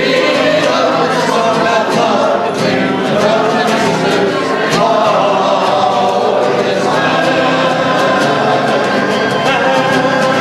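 Several voices singing a folk song together to a strummed acoustic guitar.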